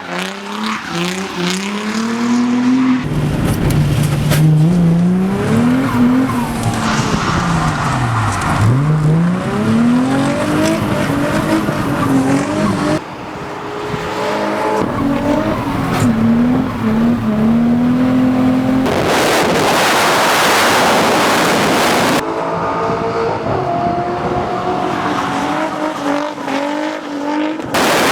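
Twin-turbo Nissan 350Z drift car's engine revving hard, its pitch rising and falling again and again as the throttle is worked, with tyres squealing under wheelspin. The sound changes abruptly several times, and for a few seconds past the middle a loud hiss of tyre noise covers the engine.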